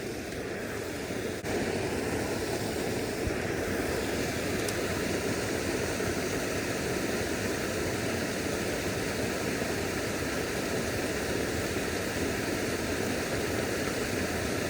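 Creek water rushing and splashing in a steady noise, a little louder from about a second and a half in.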